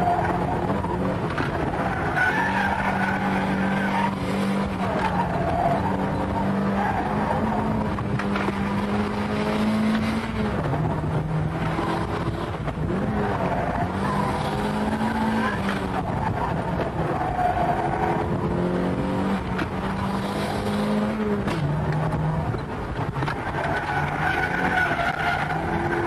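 A car driven hard through a run of bends: the engine revs climb and drop every second or two with the gear changes and lifts, and the tyres squeal in wavering tones through the corners.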